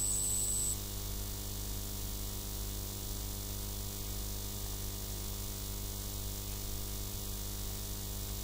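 Steady electrical hum and hiss, the background noise of the recording, with a thin high whine that cuts off under a second in.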